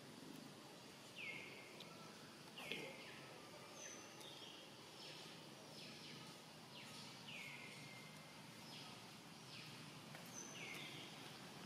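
Faint bird calls repeated over and over, each a short note that drops in pitch and trails off, over a quiet background hiss.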